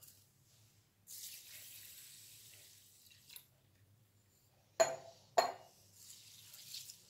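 Water poured into a bowl of raw rice for about two seconds, then two sharp knocks about half a second apart, and a hand swishing the rice around in the water near the end: rice being washed before soaking.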